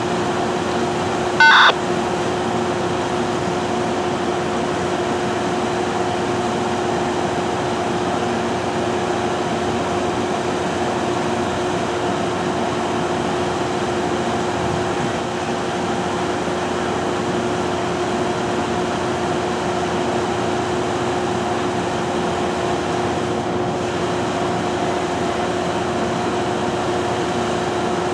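Steady machinery hum from a standing Amtrak passenger train, with two constant tones, typical of the train's air-conditioning and electrical equipment running while it waits at the platform. About a second and a half in comes one short, sharp electronic beep.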